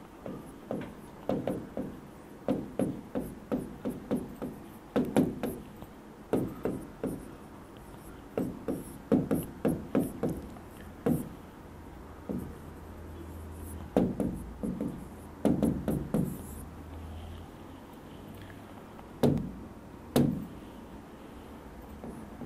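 Handwriting on an interactive whiteboard's screen: quick irregular clusters of short knocks and taps as the writing tip strikes and drags across the panel, thinning out near the end to two single knocks.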